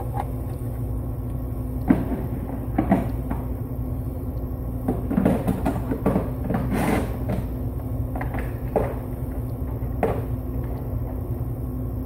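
Steady low hum of the running heat pump's indoor blower drawing air through the return grille, with scattered knocks and rustles of equipment being handled.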